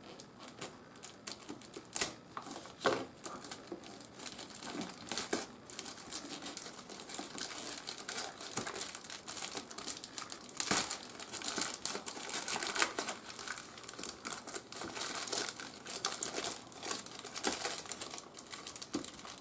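Plastic packaging being handled: a plastic mailer bag torn open, then crinkly plastic wrapping peeled off a small box, an irregular crackling with a few louder snaps near the start.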